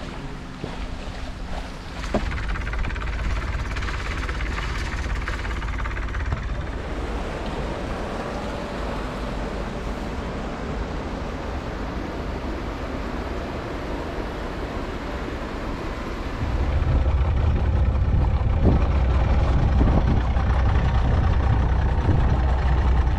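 Steady rushing noise aboard a yacht under way: wind and water, turning into a louder, low rumble about two-thirds of the way through.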